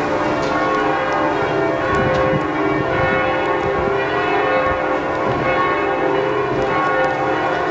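Several large church bells ringing at once in a full peal, their sustained tones overlapping into a continuous ringing wash.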